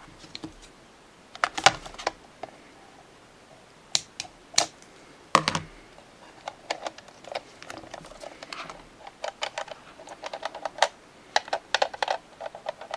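Plastic clicks and clatter from a 1992 Playskool Teddy Ruxpin head, handled and its eye and mouth mechanism worked by hand to check that it moves freely. A few louder clicks come in the first half, then a run of quicker, lighter clicks.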